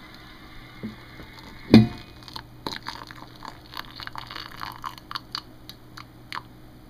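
A single heavy thump about two seconds in, then just-boiled water poured from a kettle into a ceramic mug, splashing in short uneven spurts until about a second before the end.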